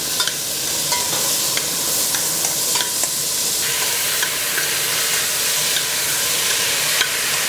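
Pigeon peas (guandules) frying in hot oil and sofrito in a steel pot: a steady sizzle as they are stirred, with a few light clicks of the utensil against the pot.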